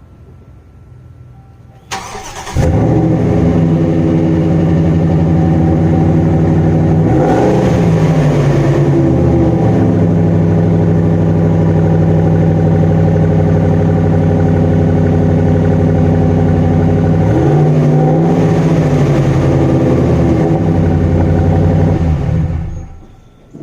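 2013 Ram 1500 pickup on its stock exhaust: the starter cranks briefly about two seconds in and the engine catches. It idles, is revved up and back down twice, then shuts off near the end.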